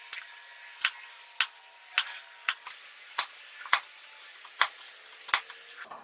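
Narrow wood chisel struck in light, sharp taps, about two a second, chopping out a rectangular slot in a small hardwood block.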